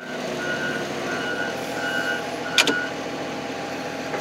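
Heavy loader's engine running steadily while its reversing alarm beeps four times, evenly spaced, with a single sharp metal clank about two and a half seconds in.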